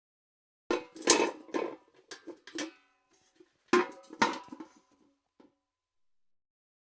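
Steel bucket clanking as it is knocked and handled: a quick run of metallic clanks with a ringing tone, a pause, then two louder clanks and a faint last one.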